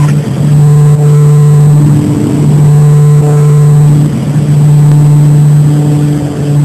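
Propeller airplane's engines and propellers droning steadily, heard inside the cabin in flight, a loud low hum with a few steady overtones.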